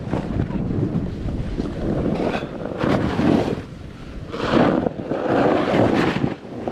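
Wind rushing over the rider-mounted camera's microphone, mixed with the hiss of a snowboard carving through powder snow, surging with each turn.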